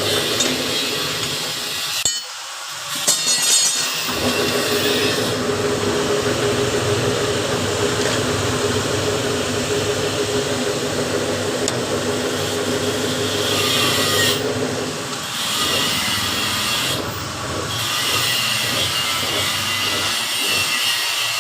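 Workshop power tool running steadily, with a harsh cutting or grinding noise and a steady hum. The sound drops briefly about two seconds in, then carries on.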